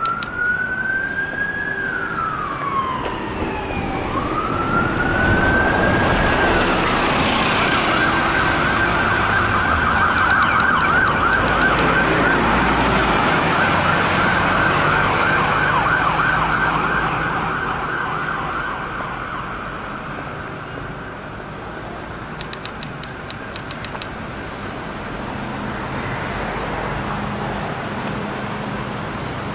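An emergency vehicle's siren over street traffic: a slow rising and falling wail, which changes about six seconds in to a fast warble. It is loudest in the middle and fades away after about seventeen seconds, leaving traffic noise.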